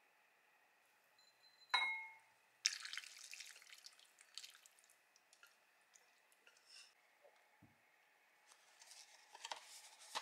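A sharp clink with a short ringing tone about two seconds in, then soup splashing and dripping as tantanmen with shirataki noodles is poured from a pot into a bowl, with small clinks after it. Near the end, a cardboard tea box rustles as it is opened.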